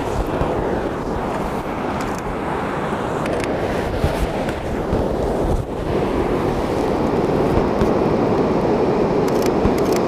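Ocean surf washing steadily onto the beach, with wind buffeting the microphone in a low flutter. The noise dips briefly a little past the middle.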